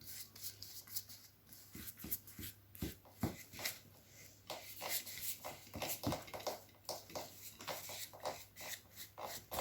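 Faint, irregular rustles and light taps of hands working over cardboard while spreading glue on it.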